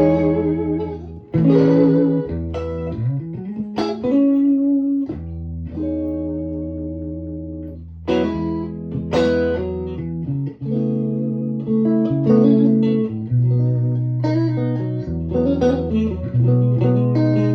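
Electric guitar played through a Victoria 35310 tweed Bandmaster-clone valve amp with three 10-inch Jensen P10R speakers, guitar volume at 9 and a 12AY7 in the first preamp socket. Chords and single notes are struck every second or two and left to ring out.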